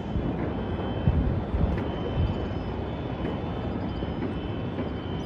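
Night city ambience: a steady low rumble of distant traffic and wind, with a few faint, sharp distant pops.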